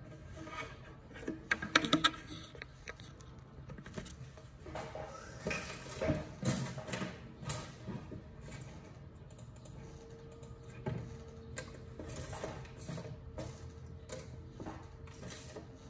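Irregular light clicks and taps of small craft objects being handled and set down on a wooden tabletop, coming in clusters, with a faint steady hum joining about ten seconds in.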